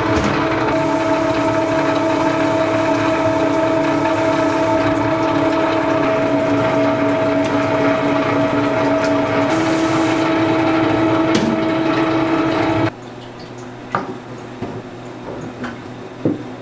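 Electric rice mill running steadily with a humming whine while grinding rice into flour, then cut off abruptly about thirteen seconds in. A few light knocks follow.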